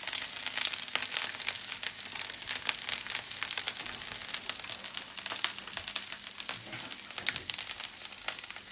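Potato slices frying in oil on a hot griddle plate, sizzling with a dense crackle of small pops.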